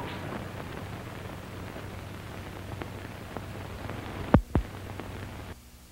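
Surface noise of an old film soundtrack: a steady hiss with faint crackle, two sharp pops about four and a half seconds in, and the hiss dropping lower near the end.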